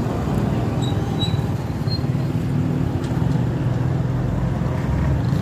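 A running engine, a steady low rumble with a faint hum in it, and a couple of faint short high whistles about one to two seconds in.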